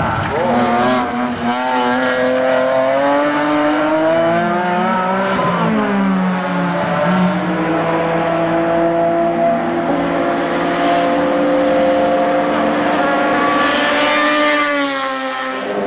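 Racing car engines on track at high revs, their pitch rising and falling through throttle and gear changes, with more than one engine note overlapping; the pitch climbs again near the end.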